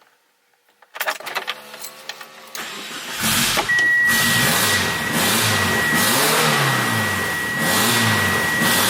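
1G Mitsubishi Eclipse GSX's turbocharged four-cylinder is cranked on the starter for a couple of seconds, catches about three seconds in and runs loudly, its speed rising and falling every second or two. A steady high whistle sounds over the engine once it is running.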